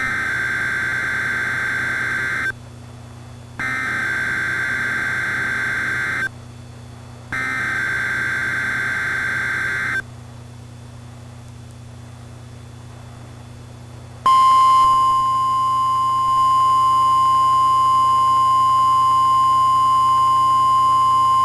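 Emergency alert broadcast signal for a National Weather Service blizzard warning: three buzzy, screeching data bursts of about two and a half seconds each with short gaps (the SAME header), then after a pause a single steady high warning tone, the NOAA Weather Radio 1050 Hz alarm tone, that starts about two-thirds of the way in and holds.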